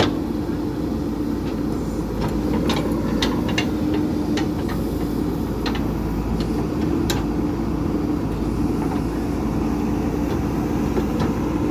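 JCB 3DX backhoe loader's diesel engine running steadily, with scattered sharp clicks and knocks over it.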